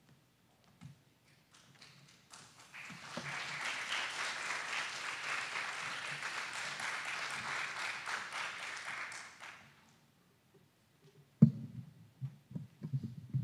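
Audience applauding: a few scattered claps, swelling about two seconds in and dying away after about ten seconds. A sharp thump follows near the end, then a run of low, irregular thuds.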